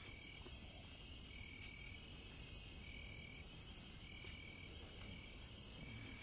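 Faint night chorus of insects: a steady high chirring with a high-pitched call repeating about every second and a half.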